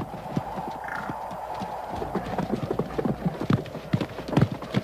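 Bison hoofbeats: irregular heavy thuds on the ground as the bison runs and wheels about, the strongest near the end.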